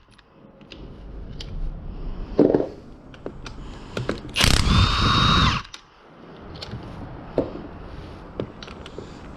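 Electric power tool run for about a second with a steady high whine, spinning out a bolt on a six-speed manual transmission case. A knock about halfway through and small metal clicks of tools and parts in between.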